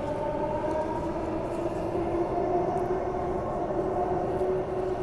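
Bombardier B-series electric multiple unit train running, its traction motors whining in several steady tones that drift slowly in pitch over the rumble of the wheels on the rails.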